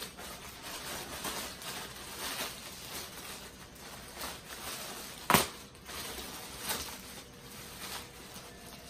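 Clear plastic bag crinkling and rustling as it is worked up and off a floorstanding speaker, with one sharp knock about five seconds in.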